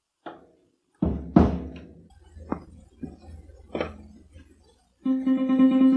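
A guitar played a few times: a loud chord about a second in, another just after, then single plucked notes that ring and fade. About five seconds in, a melodica starts a held, reedy chord.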